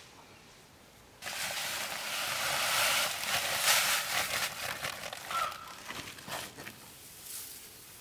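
Dry rustling and crackling, as of straw or leaves being handled, starts suddenly about a second in and thins out over the next five seconds. A brief short chirp sounds about five seconds in.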